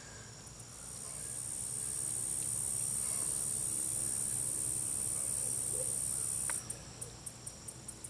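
Insects in the evening: a steady, high-pitched buzz swells up over the first second, holds, then cuts off abruptly near the end, leaving a rhythmic high chirping of about five pulses a second.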